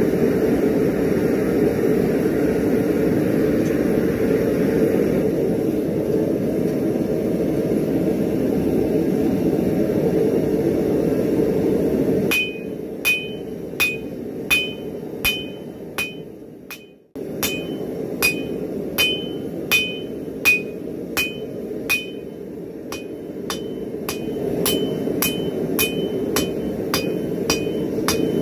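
A steady roar for about the first twelve seconds. Then a hammer starts striking hot spring steel on an anvil, one or two blows a second, each with a short bright ring from the anvil. A quieter roar continues under the later blows, and the blows come faster near the end.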